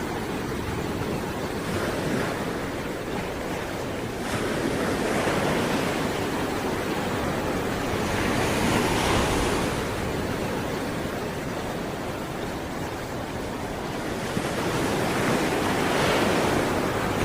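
Sea waves breaking and washing on the shore, the surf swelling and easing off several times, with some wind noise on the microphone.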